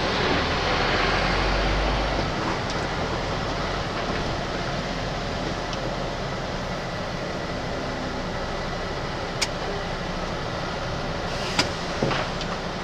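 MAN TGX lorry's diesel engine running steadily, heard from inside the cab, a little louder for the first couple of seconds. A few short clicks near the end.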